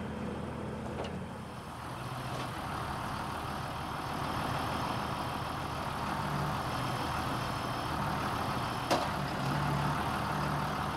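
A motor vehicle engine running steadily at low revs, its pitch shifting slightly now and then. A single sharp click or knock sounds about nine seconds in.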